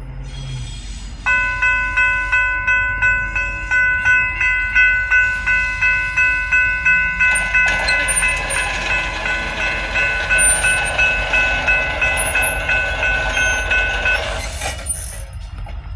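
Railroad grade-crossing bell ringing steadily about twice a second. About halfway through, the noise of a passing train joins it, and both stop shortly before the end.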